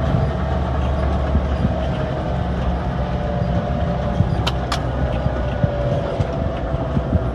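Farm tractor engine running steadily, with loose rattling and two sharp clicks about four and a half seconds in.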